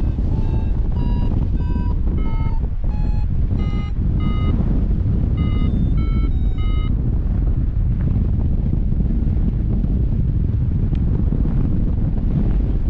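Paragliding variometer beeping in short tones, a little under two a second, the pitch shifting up and down from beep to beep: the climb tone that signals the glider is rising in lift. The beeps stop about seven seconds in. Heavy wind rush on the microphone underlies it throughout.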